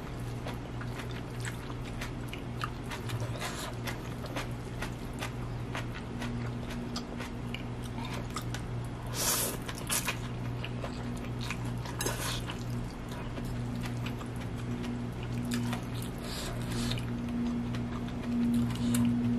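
A person eating fried instant noodles: a fork clicking and scraping on a plate, chewing, and louder slurps of noodles around nine and twelve seconds in, over a steady low electric hum.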